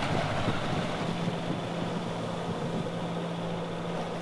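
Sailboat underway in choppy water: steady rush of wind and water, with a steady low hum coming in about a second in.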